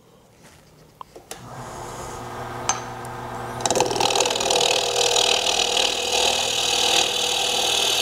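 A couple of clicks, then a mini wood lathe's motor starting and running up with a steady hum. From about three and a half seconds in, a small bowl gouge cuts into the spinning green apple wood with a loud, steady shearing hiss over the motor.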